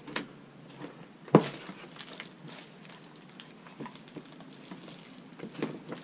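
Light clicks and taps from a plastic cordless-tool battery charger, its cord and battery being handled and plugged in, with one sharp click about a second and a half in.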